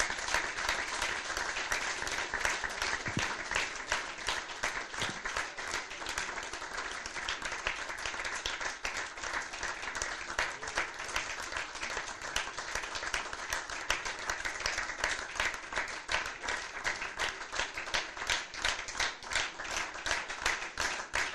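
Audience applauding steadily, the claps falling into rhythmic clapping in unison near the end.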